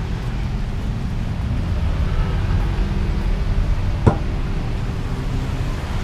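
Steady low rumble of city street traffic, with one short sharp knock about four seconds in.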